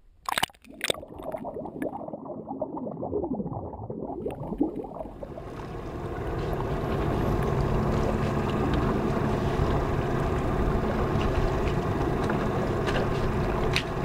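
Two sharp knocks, then water gurgling and lapping, then from about five seconds in a boat's motor fades in and runs steadily.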